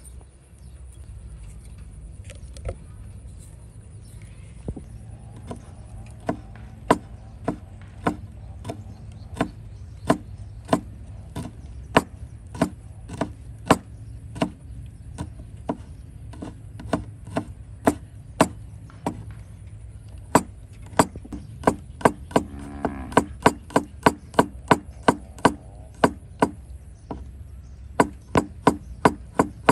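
Steady chopping with a blade striking wood, one crisp chop after another at about two a second, speeding up to about three a second in the second half.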